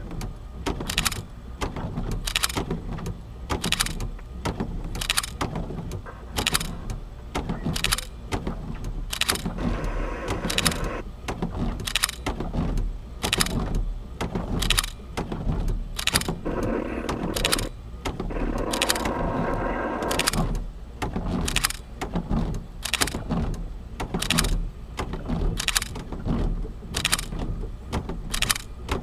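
Car windshield wipers sweeping fast and regularly, about three strokes every two seconds, over rain and the steady low hum of the vehicle.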